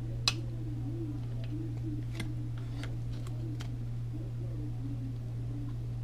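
A few sharp clicks of small plastic parts and a plug connector being handled, the loudest about a third of a second in, over a steady low hum.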